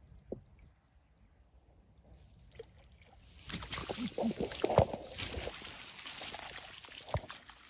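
Water splashing and sloshing, setting in about three seconds in after a quiet start, with scattered knocks; one sharp knock near the end.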